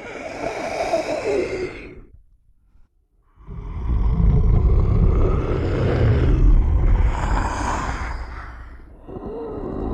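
Movie monster sound effects for the Kothoga creature, made by a man growling and wheezing. A breathy growl fades out about two seconds in. After a short silence comes a long, deep, rumbling growl of about five seconds, and another growl starts near the end.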